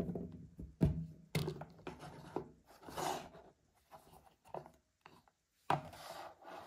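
Hands handling small objects: scratchy rubbing and rustling, with a few sharp taps, about a second in, a second and a half in, and near the end.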